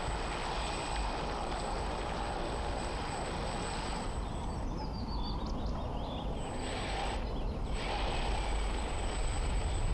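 Steady outdoor background noise with a low rumble throughout, and a few faint high chirps about halfway through.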